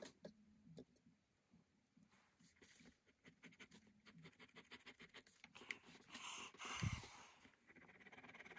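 Faint scratching of a ballpoint pen on sketchbook paper, a quick run of short hatching strokes. Near the end comes a louder rushing sound with a low thump.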